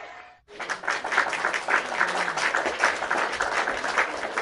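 A crowd applauding: many hands clapping densely and evenly, starting abruptly about half a second in.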